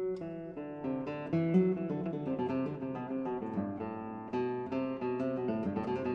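Acoustic guitar music, a steady run of plucked notes.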